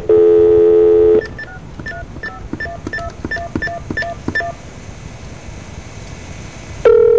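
A telephone call being placed: a loud steady tone for about a second, then about ten touch-tone (DTMF) digits dialed in quick succession, a couple of seconds of faint line hiss, and another steady tone near the end as the call rings through.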